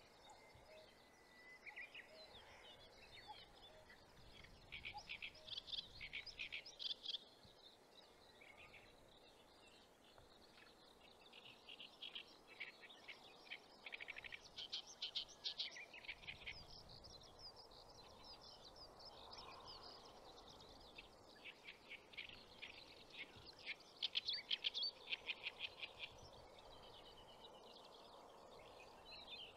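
Songbirds singing in repeated bursts of fast, chattering trills, several seconds apart, over a faint steady outdoor hiss.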